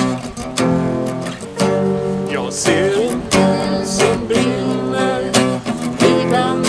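Live band music: an acoustic guitar strumming over held electronic keyboard chords. A singing voice with a wavering pitch comes in about two seconds in.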